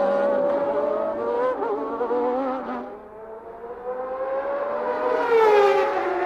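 Formula One car's engine heard from the onboard camera at high revs: the note holds, drops and fades about three seconds in, then climbs steadily again, with a sharp change in pitch near the end.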